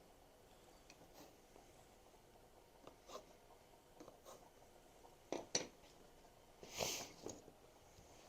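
Quiet room with a few faint, light clicks and knocks scattered through, a slightly sharper pair of clicks about five and a half seconds in, and a brief rub or rustle about seven seconds in: small handling sounds.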